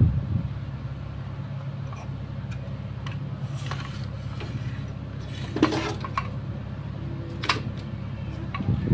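Steady low background hum with a few brief rustles and knocks from the opened CRT television chassis and its wiring harness being handled and shifted.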